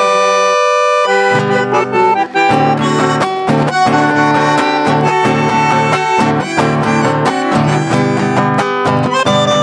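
Bandoneon and acoustic guitar playing a chamamé live. It opens with held bandoneon chords, then about a second in the guitar and the bandoneon's bass set up a steady rhythm.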